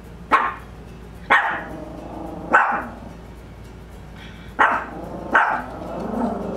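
Small Pomeranian dog barking: five short, sharp barks at uneven intervals, then a longer, lower sound near the end. It is territorial alert barking at an unfamiliar car parked on a neighbouring roof.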